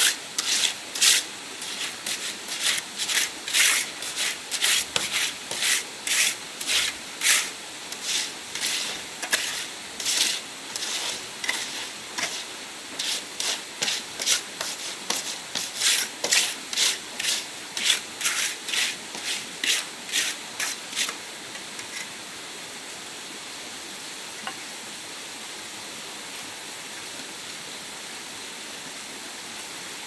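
A hand tool worked back and forth on wood, about two scraping strokes a second, which stop about two-thirds of the way through. A steady rush of running water is left behind them.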